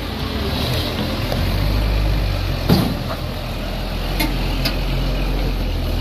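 Hino 500 concrete mixer truck driving slowly past at close range, its diesel engine running with a steady low rumble. A single sharp clunk sounds a little before halfway.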